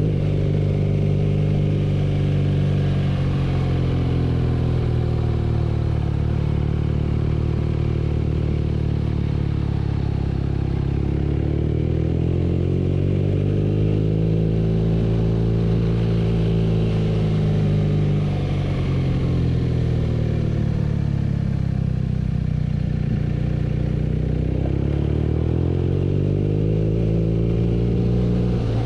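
BMW R nineT's air/oil-cooled boxer-twin engine under way, its pitch falling and rising in long, slow swells as the throttle is rolled off and opened again. It dips lowest about a third of the way in, climbs to a peak past the middle, falls, and climbs again near the end.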